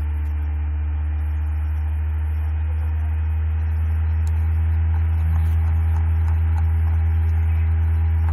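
A steady low electrical hum with a faint hiss, with no change in pitch; it gets slightly louder about four seconds in.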